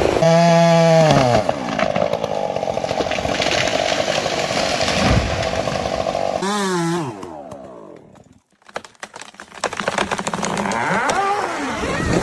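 Chainsaw revving high, then dropping back and running steadily through a cut. It revs again and falls away about seven seconds in, followed by a few seconds of sharp cracks and snaps.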